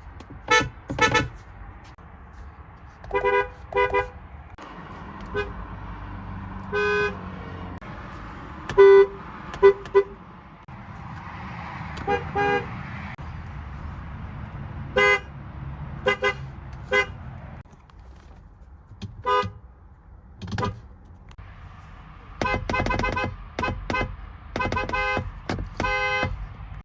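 Car horns giving many short honks, some in quick pairs, with a fast run of short toots near the end, over a steady low traffic rumble.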